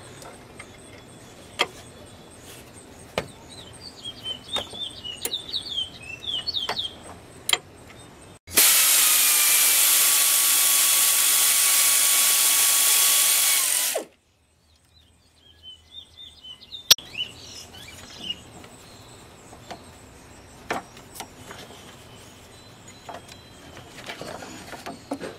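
Cordless power tool spinning a socket on the alternator's tensioning bolt to slacken the belt: a steady motor whine over loud hissing, starting about eight seconds in and cutting off abruptly about five seconds later. Before and after it, scattered clicks and taps of hand tools, and a few bird chirps early on.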